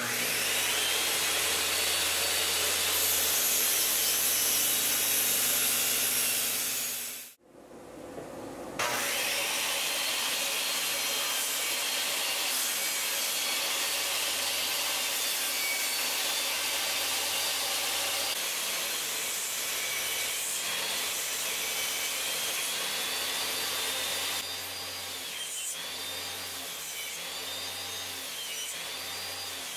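Makita circular saw motor, driving an 8 1/4-inch finishing blade under a homemade table saw, starting and running up to speed, then running down and stopping about seven seconds in. It starts again and runs steadily while wood is fed through the blade for an angled rip cut. Near the end it runs quieter, its pitch dipping and recovering several times as the blade takes the load.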